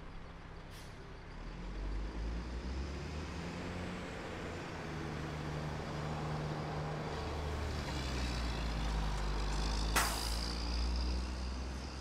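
A motor vehicle's engine running close by, a low rumble that comes in about a second in and grows louder, with a short sharp hiss about ten seconds in.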